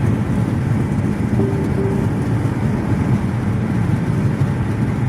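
Steady low road rumble inside a moving car's cabin, with two short faint tones about a second and a half in.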